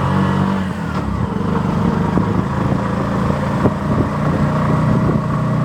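Auto-rickshaw's small engine running steadily under way, heard from inside the cab, with frequent short knocks and rattles from the body over a rough road.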